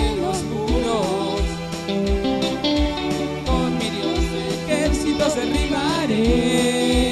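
Live church worship band playing the introduction of a song: guitar and a low beat about every 0.7 s, with a wavering melody line over sustained chords.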